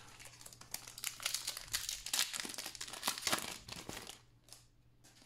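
A plastic trading-card pack wrapper being torn open and crinkled by hand, a dense crackling that stops about four seconds in.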